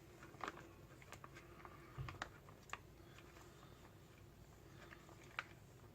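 A few faint, scattered clicks and taps of objects being handled at a table, with a dull low thump about two seconds in and the sharpest click near the end.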